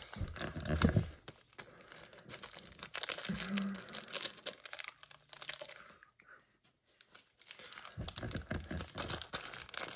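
Crinkly toy packaging being torn open and handled by hand: irregular crackling and tearing, with a short lull past the middle.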